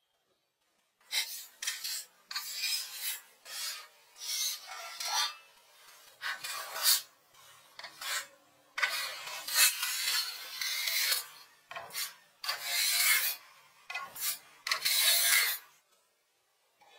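Sanding filled plasterboard by hand: a series of irregular rasping strokes of abrasive on the wall.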